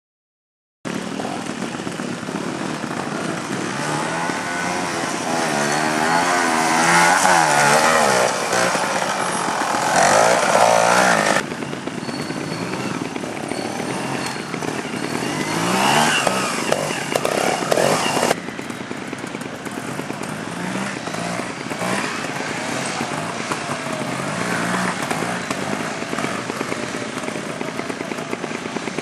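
Trials motorcycle engines revving and blipping as they are ridden slowly through a section, the pitch rising and falling with each throttle opening. The sound starts about a second in and changes abruptly twice, near 11 and 18 seconds in, as one clip cuts to the next.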